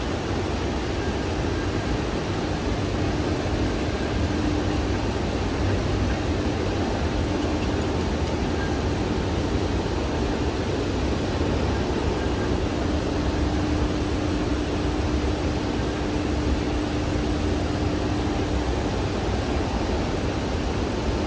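Steady ambient rumble and hiss of a large indoor store, with a faint steady hum and no distinct events.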